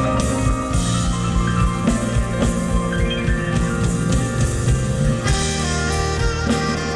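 Music with sustained melodic notes over a steady drum beat.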